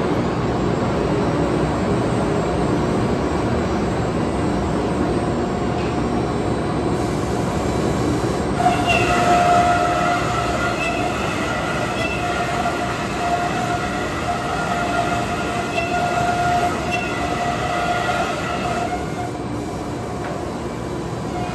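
Thermwood Model 45 CNC router running with a steady mechanical roar. From about nine seconds in, a whine that swells and fades rides over it, dropping out about two seconds before the end.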